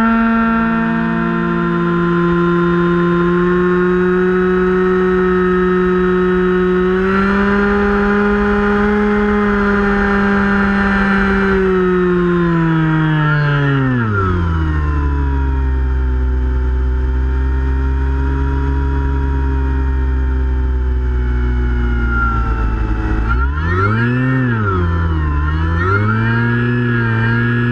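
Electric motor and propeller of a Finwing Penguin RC plane whining steadily. The pitch rises a little, glides down to a low drone about halfway through, then rises and falls in quick swells near the end.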